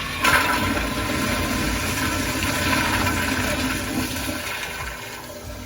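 Toilet flushing: a loud rush of water that surges just after the start, holds, then dies away near the end.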